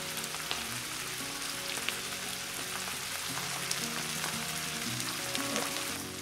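Corned beef, diced potatoes and onion sizzling in oil in a frying pan: a steady hiss with a few small pops.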